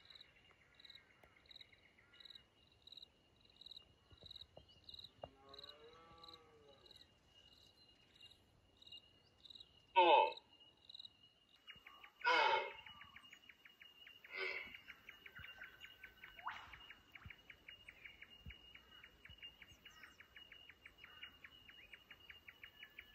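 Bush ambience: a steady high insect trill with short chirps about every two-thirds of a second. Three short, louder calls come about ten, twelve and fourteen seconds in.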